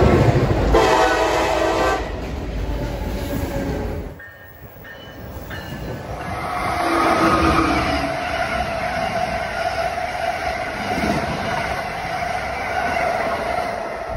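A diesel-hauled freight train rumbling past with its horn sounding briefly near the start. After an abrupt cut about four seconds in, an Amtrak passenger train runs past with a steady rush of wheels on rail that swells and fades.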